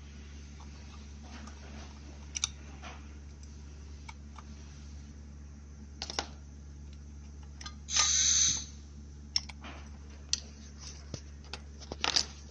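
Scattered light clicks and taps of small fishing-reel parts being handled and taken apart, with one short, louder rasp about eight seconds in, over a steady low hum.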